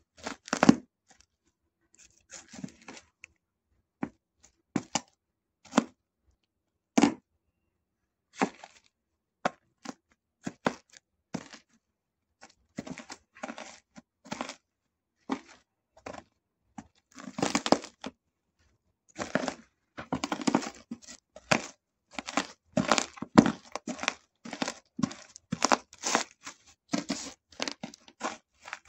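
Small fried dough twists (mahua) crunching and crackling as hard-soled shoes step on them and grind them into crumbs on a paper sheet. Separate crunches about a second apart at first, then quicker, almost continuous crunching in the second half.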